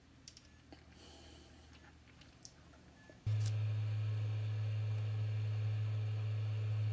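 Faint clicks from handling parts, then, about three seconds in, a hot air rework station's blower comes in abruptly: a steady low hum with a fainter whine and a hiss.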